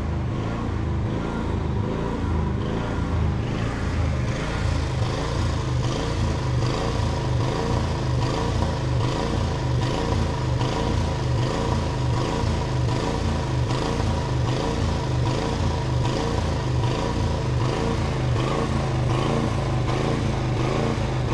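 An engine running steadily at an even speed, with a low, regular throb.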